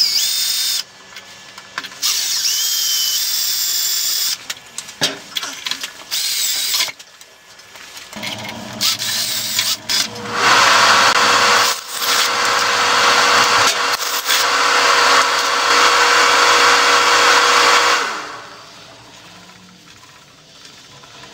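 Cordless drill boring out a plug weld that fills a bolt hole in a steel motorcycle frame, using progressively larger bits. It runs in a few short bursts, then in a long steady run of about ten seconds in the second half, and it goes quieter near the end.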